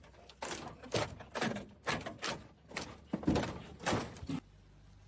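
Repeated banging on a door, about two heavy knocks a second, stopping suddenly about four seconds in.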